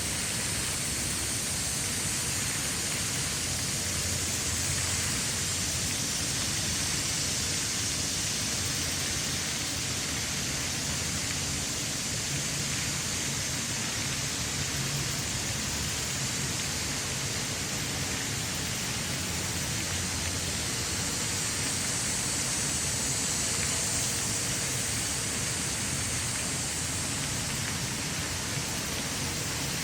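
A steady, even rushing noise with a low rumble underneath.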